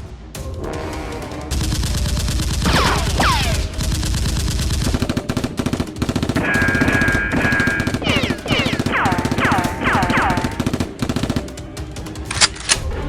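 Rapid automatic gunfire, a fast unbroken run of shots lasting about ten seconds, with several falling whistles over it and music underneath.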